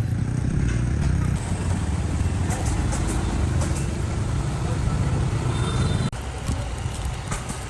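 Street noise with a low engine rumble, as of a motorbike running close by, and indistinct voices; the rumble breaks off suddenly about six seconds in.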